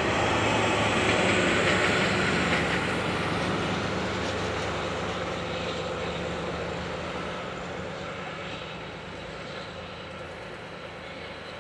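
Steam-hauled train behind JNR Class 8620 locomotive No. 58654 running by and then receding, its running noise loudest in the first few seconds and fading steadily after that.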